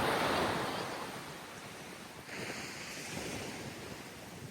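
Surf washing in, loudest at first and fading over about a second, then a smaller wash of water about two seconds in, with wind on the microphone.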